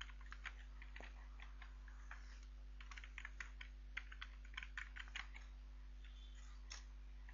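Faint computer keyboard typing: irregular key clicks that come quickest in a run in the middle, with a last keystroke near the end, over a steady low hum.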